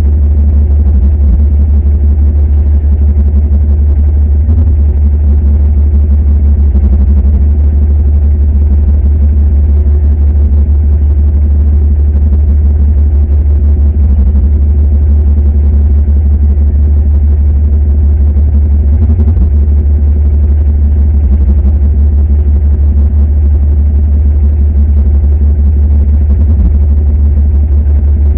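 Heavy diesel engine running steadily at close range: a loud, even low rumble that does not rise or fall.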